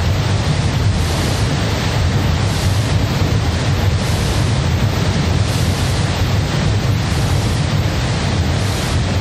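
Dense, steady noise with a heavy low rumble and a hiss on top that swells and ebbs about once a second, like wind or surf, from an experimental noise and field-recording piece.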